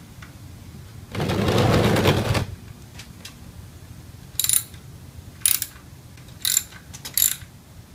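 Socket ratchet clicking as it runs the oil drain bolt back in. A fast, loud run of clicks lasts about a second and a half near the start. Later come four short bursts of clicks, one with each back-swing of the handle as the bolt is tightened.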